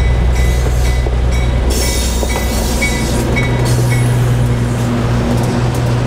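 White Pass and Yukon Route diesel locomotive running past close by, its engine giving a steady low drone, as the passenger coaches behind it roll along the track.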